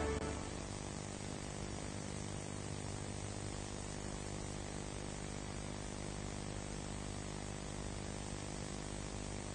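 Steady hiss with a faint low mains hum from VHS tape playback over a blank, silent stretch of the tape, just after the closing music dies away at the very start.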